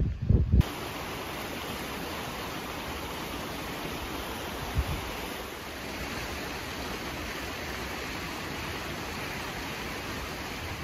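Steady, even rush of distant waterfalls cascading down a cliff face. A short gust of wind buffets the microphone in the first half-second before the water sound takes over.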